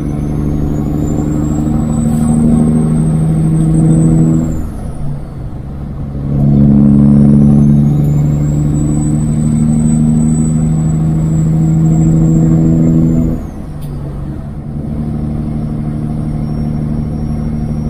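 Kenworth W900 semi's straight-piped diesel engine pulling hard under a heavy load, its note and a high turbo whistle rising through each pull. The pull breaks off twice, about four and a half seconds in and again after thirteen seconds, as at a gear change, then settles to a steadier, quieter run.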